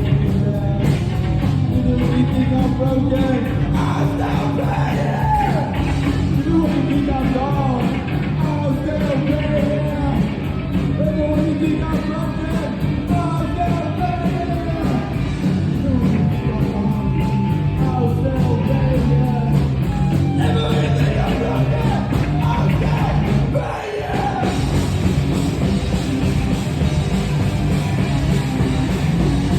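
Live rock band playing loud, with guitars, bass and drums under a singer's voice. The music drops out briefly about three-quarters of the way through, then kicks back in.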